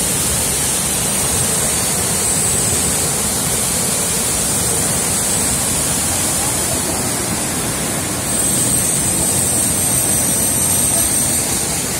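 Waterfall water rushing down over rock in a steady, unbroken wash of noise, which gets a little louder about eight seconds in.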